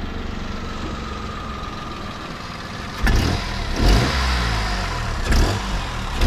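Peugeot 107 engine idling steadily just after a start, then revved in four short blips from about three seconds in. The odd noise comes from the exhaust at the rear, which the owners feared meant engine damage.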